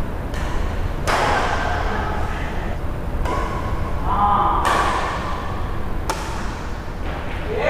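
Badminton rally: racket strings hitting the shuttlecock about five times, sharp strikes a second or two apart, each echoing in a large hall.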